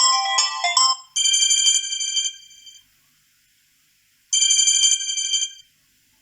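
Samsung Galaxy A20 preset ringtones playing from the phone. A quick melodic run of notes ends about a second in. Then a bright chiming tone, several pitches sounding together for about a second and a half and fading out, sounds twice with a pause of about two seconds between.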